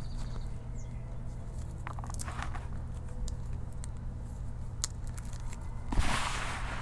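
Fingers crumbling and rubbing crushed chalk powder and grit in a bucket: scattered soft crunches and crackles, with a louder gritty crumbling burst about six seconds in.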